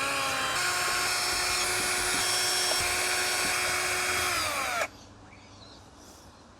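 Power drill-driver running steadily for nearly five seconds, backing out the base plate screws of a robot vacuum. Its whine drops in pitch just before it stops.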